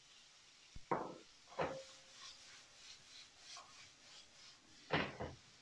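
Diced tomatoes tipped from a bowl into a nonstick frying pan of onions and peppers, with two thumps, one leaving a brief ring, then a wooden spatula stirring and scraping the vegetables in soft strokes, with another knock near the end.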